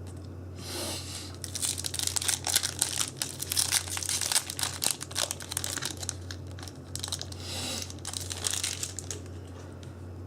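Foil wrapper of a Yu-Gi-Oh booster pack crinkling and being torn open: a run of irregular crackles from about half a second in until near the end, over a steady low hum.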